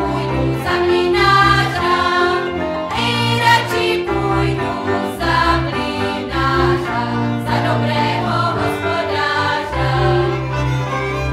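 Music: a group of voices singing together over instrumental accompaniment with long held bass notes.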